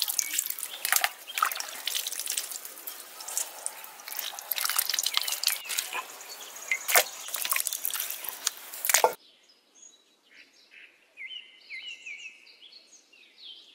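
Water dripping and splashing as soaked ash gourd pieces are squeezed by hand to press out the lime water and dropped into a steel bowl of water, with small sharp splashes and clicks. About nine seconds in, this cuts off to near quiet with small birds chirping.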